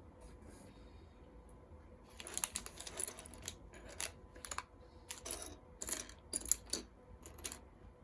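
Plastic Lego pieces clicking and tapping as they are handled and pressed together: a run of irregular sharp clicks starting about two seconds in.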